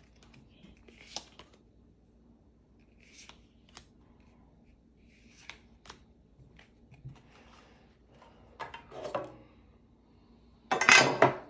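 Pokémon trading cards being flipped through one by one, with soft snaps and slides of card on card. Near the end comes a louder, brief rustling scrape.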